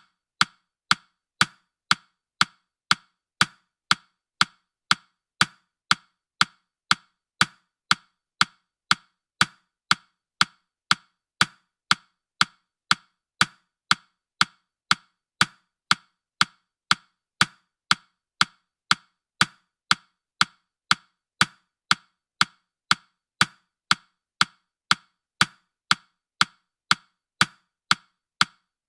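Countdown timer's clock ticking, a steady, even run of sharp ticks at about two a second.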